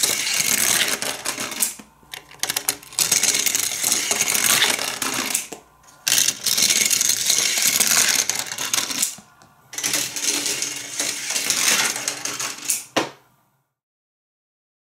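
Matchbox die-cast cars rolling down a plastic spiral track and ramp, a fast rattling clatter in four runs separated by short pauses.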